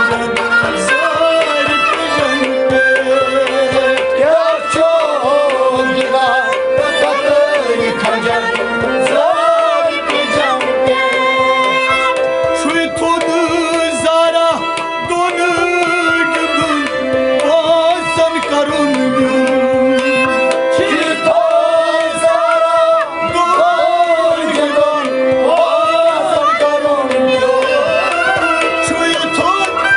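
Kashmiri Sufi music: tabla drumming under a sliding, wavering melodic line.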